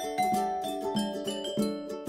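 Background music: a light tune of plucked strings in a steady rhythm, with a melody line stepping downward.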